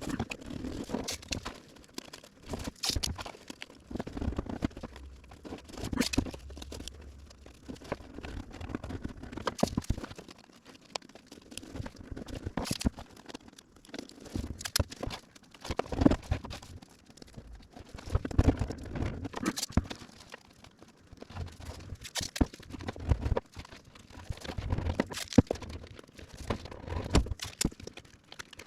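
Masking tape being pulled off the roll, torn and pressed down along the edges of a car door panel: irregular crackling, tearing and tapping handling sounds.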